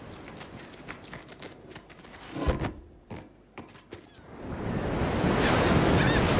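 Crashing ocean waves, a noisy rush with a single thud about two and a half seconds in, then a wave building up and breaking louder over the last two seconds.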